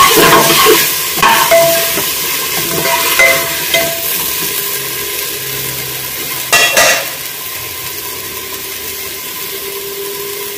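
Chopped vegetables sizzling in an aluminium pressure cooker. A metal spatula scrapes and clinks against the pot in the first few seconds, and there is a brief louder clatter about six and a half seconds in; after that there is only steady sizzling.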